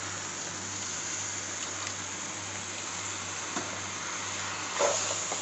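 Raw chicken pieces sizzling in a hot pan of fried onion-tomato masala, a steady frying hiss. A short knock near the end.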